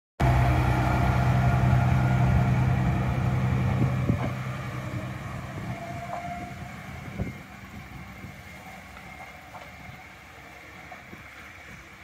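Tsugaru Railway diesel railcar pulling away from the platform, its engine running loud at first and then fading steadily as it moves off down the line. Two short knocks come about four and seven seconds in.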